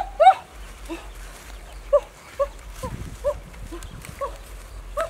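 A small animal's short, repeated high calls, about two a second, loud at first and then faint.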